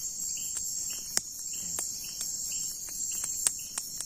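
Night insects trilling steadily, with a short chirp repeating about every half second, over a campfire of dry twigs and branches crackling with sharp pops, the loudest about a second in and again near the end.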